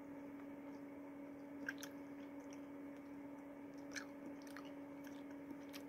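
Faint chewing of gummy fruit snacks: a few soft, scattered mouth clicks over a steady low hum.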